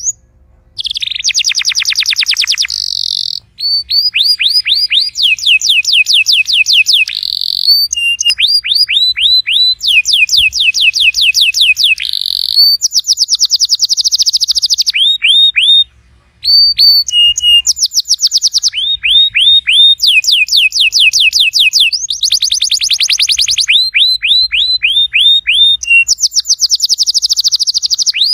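Domestic canary singing a long, continuous song of rapid trills: each phrase is a quick run of the same short downward-sweeping note repeated many times, switching to a new phrase every second or two, with a brief pause about halfway through.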